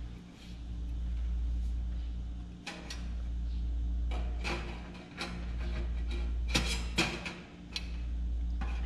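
Sheet-steel stove pipe sections clanking against the steel tent stove body as they are slid inside it, several sharp metallic knocks, over a steady low hum that swells and dips about every two and a half seconds.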